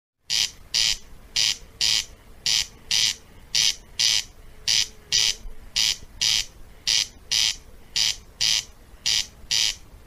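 A corncrake calling its rasping two-part 'crex crex', about one pair of rasps a second, repeated steadily.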